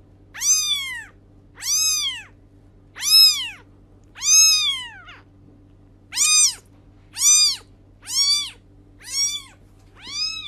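A young kitten meowing over and over: nine high-pitched mews, each rising and then falling in pitch, about one a second.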